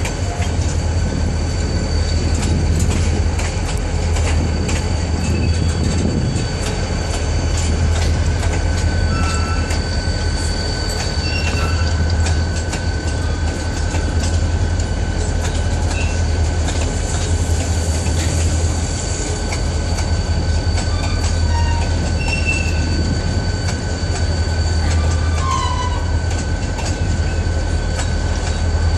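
Freight train of steel hopper cars and boxcars rolling past, wheels clicking and clanking over the track over a steady low rumble. A thin, steady high-pitched wheel squeal runs throughout, with short squeaks here and there.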